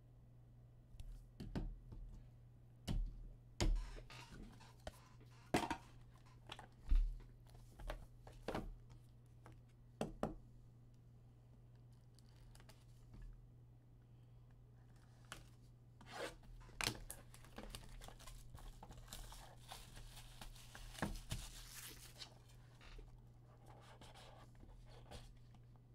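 Plastic shrink wrap being torn and peeled off a trading-card box, crackling most densely about two-thirds of the way through, with scattered taps and knocks of the cardboard box being handled. A steady low electrical hum runs underneath.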